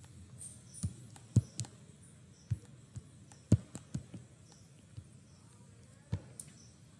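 Computer mouse being clicked and handled: about a dozen irregular clicks and light taps, two of them louder, over quiet room tone.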